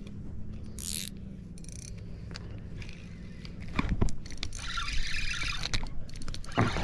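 Spinning reel being cranked to bring in a hooked fish: scattered clicks and scraping that get louder and busier about four seconds in.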